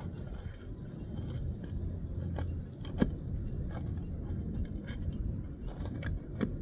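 Light metal clicks and scrapes of a pry bar worked under a lifted asphalt shingle toward its nail, with one sharper click about three seconds in, over a steady low rumble.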